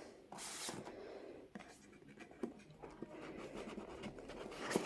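Cardboard scraping and rustling as a door of a cardboard advent calendar is worked open and the small item inside handled, with a brief louder scrape just under a second in and more near the end.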